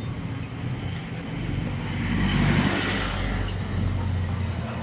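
A vehicle engine running steadily at idle. About two seconds in, a louder rushing swell rises over it and fades.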